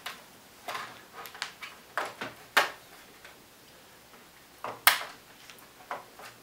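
Irregular sharp plastic clicks and snaps as the bottom access cover of an HP G62 laptop is pressed down and its clips snap into place.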